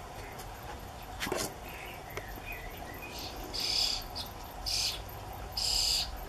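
European starling nestlings giving harsh, raspy begging calls in three bursts from about three seconds in, as the adult arrives at the nest to feed them; a few faint chirps come before.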